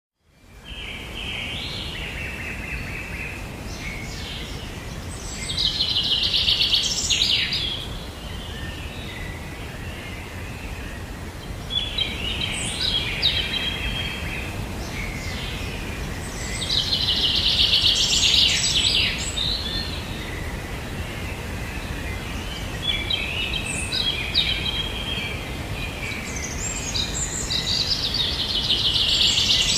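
Songbirds singing: scattered chirps and a dense, rapid, high trill that comes back about every eleven seconds over a steady low background noise.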